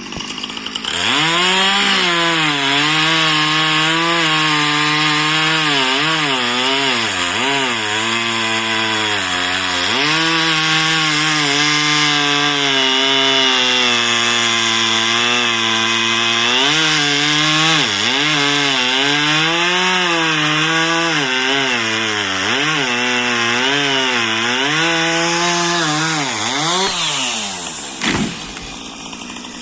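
Two-stroke chainsaw with a Husqvarna X-Cut chain running at high revs and cutting through wood. The engine pitch sags again and again as the chain loads up in the cut, then climbs back. A short sharp knock comes near the end.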